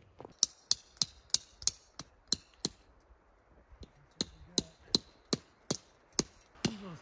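Hammer driving a tent stake into rocky ground, sharp ringing blows about three a second. A run of eight or so strikes, a short pause, then another run.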